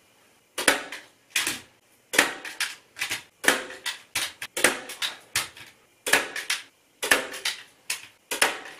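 DeWalt staple gun firing staples one after another, over a dozen sharp shots at roughly two a second with a few short pauses, driving them through velvet fabric and wadding into a wooden headboard frame.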